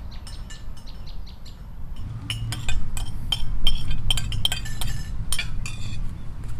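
Spoons clinking against plates and bowls at a meal, many quick clinks starting about two seconds in. Before that, a quick run of short high chirps fades out.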